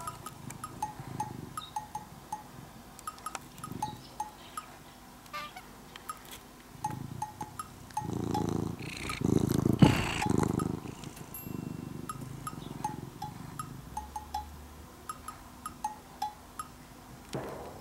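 Domestic cat purring in steady rhythmic phrases. It is much louder and rougher for a few seconds in the middle, as the cat comes right up to the microphone.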